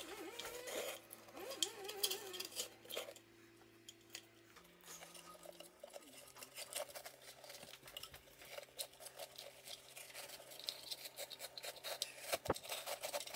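Faint rustling and scratching of fibre damping stuffing being handled inside a bookshelf speaker cabinet, with scattered small clicks and one sharper click near the end.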